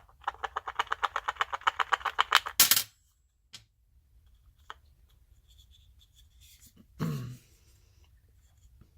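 A rapid, even run of mechanical clicks, about ten a second, growing louder for two and a half seconds and ending in a short louder noise. A few single ticks follow, and there is a brief low thump about seven seconds in.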